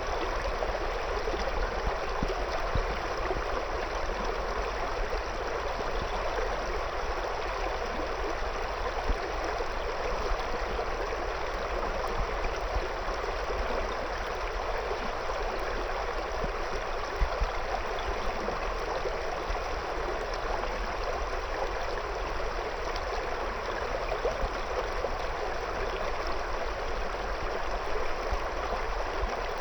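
River water flowing steadily around stones, a continuous babbling with small splashes.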